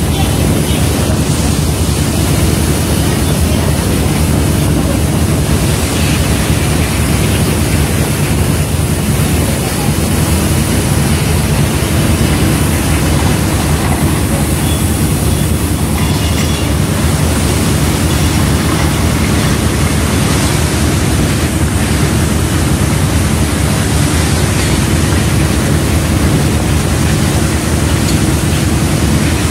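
Steady machinery drone of a fishing trawler, its engine and net-hauling gear running while the trawl net is brought aboard, with a faint steady hum over the din.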